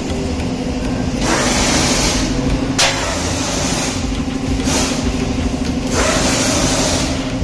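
Steady mechanical hum with a constant low pitch, broken by several stretches of hiss lasting about a second each and one sharp click about three seconds in.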